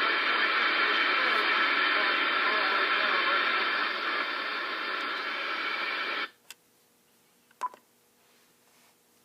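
Shortwave reception from an Icom IC-7000 transceiver's speaker: a loud, hissy, narrow-sounding radio signal that cuts off suddenly about six seconds in, followed by a couple of faint clicks.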